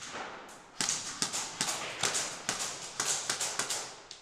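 A quick, irregular run of about a dozen sharp clicks and knocks starting about a second in and stopping near the end.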